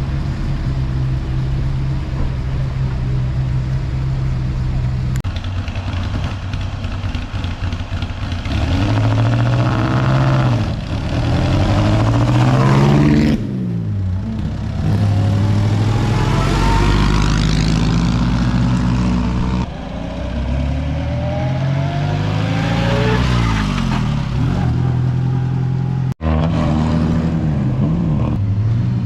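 Vintage Bugatti engines first run steadily at idle. Then several cars rev and accelerate past one after another, their engine pitch rising and falling as each goes by.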